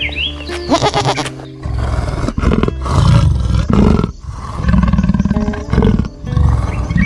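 A goat bleats briefly at the start. Then a big cat gives a run of about five low, rasping roars, each under a second long, over light background music.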